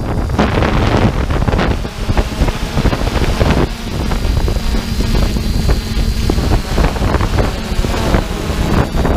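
Wind buffeting the microphone outdoors, a loud uneven low rumble that swells and dips throughout.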